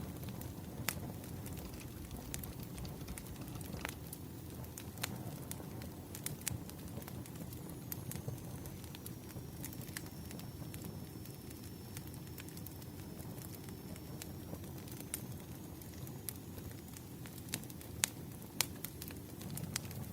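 Wood fire crackling, with scattered sharp pops at irregular intervals over a steady low rumble.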